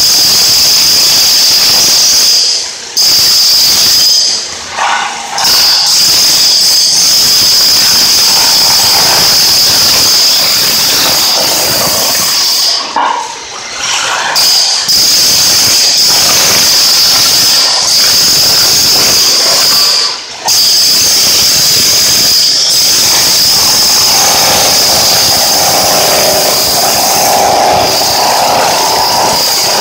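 Electric demolition hammer with a chisel bit chipping floor tile off a concrete slab: loud, continuous rapid hammering and chattering of the bit against tile and concrete, stopping briefly a few times.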